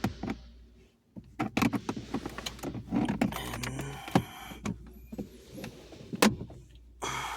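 A flathead screwdriver prying at the plastic dashboard trim of a 2018 Honda Civic: a run of sharp clicks and knocks with a stretch of plastic creaking as the panel is worked loose.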